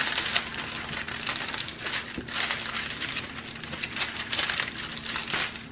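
Clear plastic cover film on a diamond painting canvas crinkling and rustling as hands lift and smooth it down, in a run of irregular swishes.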